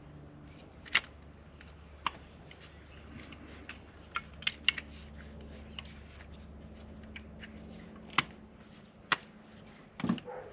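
Ignition coil packs being swapped on a VW engine: scattered sharp plastic clicks and clacks of coils and connectors being handled, over a low steady hum that stops about eight seconds in. A duller knock comes near the end.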